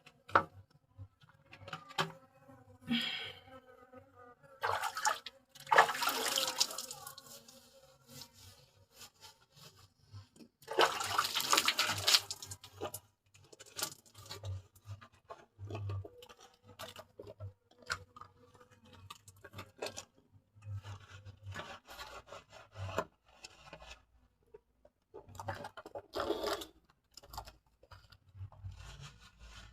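Water poured and splashing in two long gushes, about five and eleven seconds in, with a shorter splash later, during a bucket bath. Between them come scattered small knocks and rubbing sounds.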